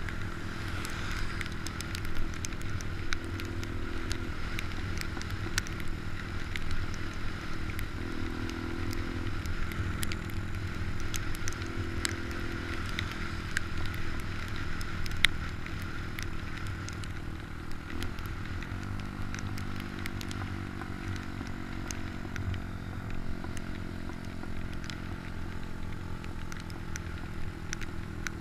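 Motorcycle engine running steadily on a ride in the rain, with scattered crackles over it. About eighteen seconds in its pitch drops briefly, then climbs again.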